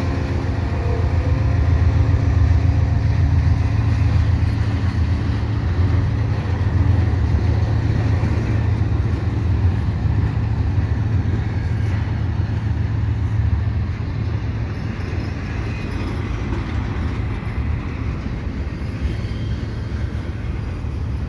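Intermodal freight train passing close by: the pitched note of the lead GE ES44AC diesel locomotive's engine dies away in the first couple of seconds. Then comes the steady low rumble of double-stack container cars rolling over the rails, growing slowly quieter.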